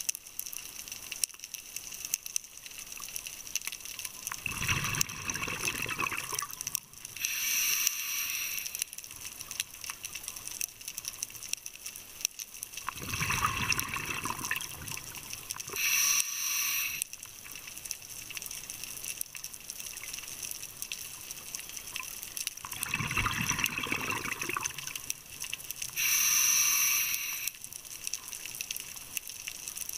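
Scuba diver breathing through a regulator underwater, three breaths about nine seconds apart. Each is a couple of seconds of rumbling exhaled bubbles, then a shorter hiss of air through the regulator on the inhale.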